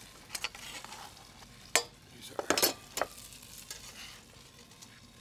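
Metal fish spatula clinking and scraping against a frying pan as seared sea bass pieces are lifted out, a few sharp clinks loudest near the middle, over a faint sizzle in the pan.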